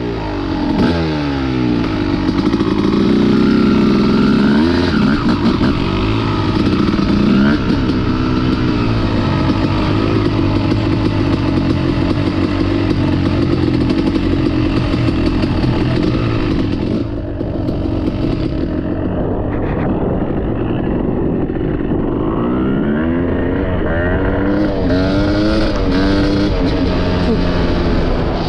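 Yamaha YZ250 single-cylinder two-stroke dirt bike engine running under load on a trail, its revs rising and falling again and again. The throttle eases off about two-thirds of the way through, then the revs climb and drop in quick sweeps near the end.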